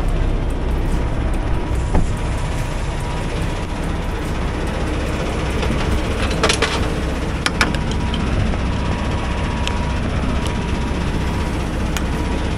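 Semi truck's diesel engine idling steadily, with a short hiss about six and a half seconds in and a few light clicks.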